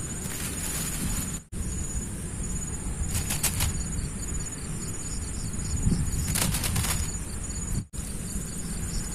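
Crickets and other insects chirping steadily in high, pulsing trills over a low, steady rumble. There are two brief rustles in the middle, and the sound drops out for an instant twice.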